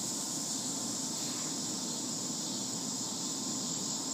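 Steady background hiss with a high, even band and a low hum underneath, unchanging throughout.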